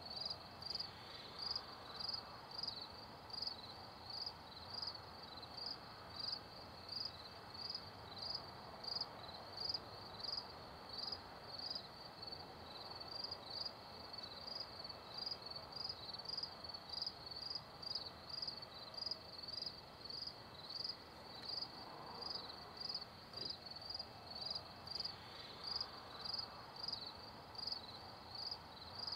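Crickets chirping at night: a steady, even rhythm of short high chirps, about one and a half a second.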